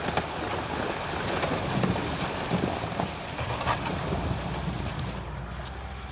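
Pickup truck engine running as it drives through flooded, ice-covered ruts, with water sloshing and sharp cracks of breaking ice under the wheels.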